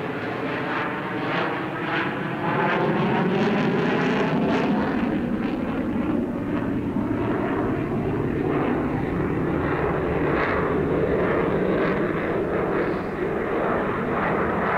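The .45-size glow engine of a radio-controlled Super Chipmunk 45 model airplane buzzing in flight. Its pitch wavers up and down as the plane manoeuvres.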